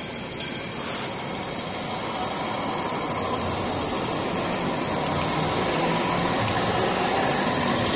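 Hong Kong MTR Light Rail train passing close by, a steady running noise as it rolls past.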